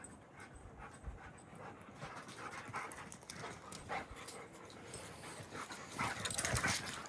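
Dog panting and moving about in snow, faint at first and louder near the end.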